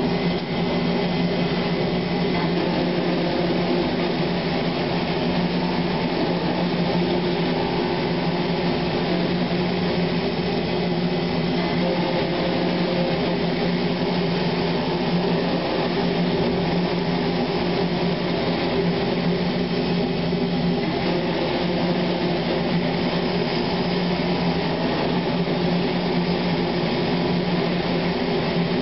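Industrial machinery running steadily: an even mechanical hum with a low steady tone.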